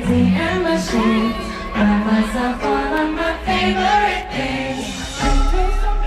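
Music with singing, a melodic vocal line over accompaniment, with a deep bass note coming in about five seconds in.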